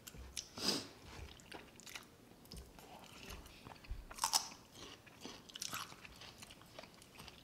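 Close-miked crunching bites and chewing of raw celery sticks, with a few sharper crunches spaced a second or more apart.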